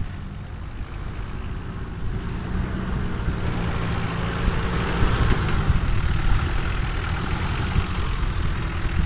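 Off-road 4x4's engine running under load as it climbs through brush on a steep slope, growing louder through the first half, with its note dipping about halfway through.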